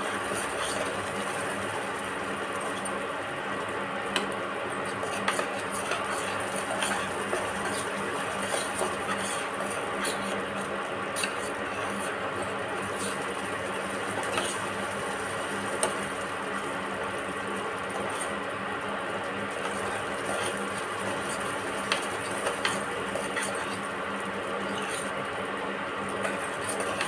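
Thick ginger mixture boiling in a pan over a gas burner: a steady bubbling hiss with a faint hum and scattered soft pops and clicks.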